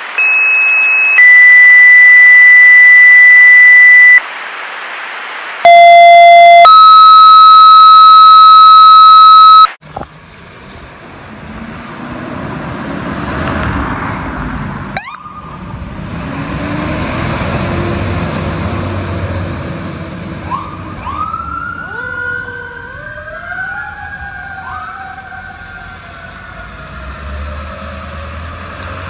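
Two pairs of loud two-tone dispatch paging tones, each a short steady tone followed by a longer one at a different pitch. Then a fire engine's diesel rumbles, and from about two-thirds of the way in several sirens wind up and wail, rising and falling in pitch.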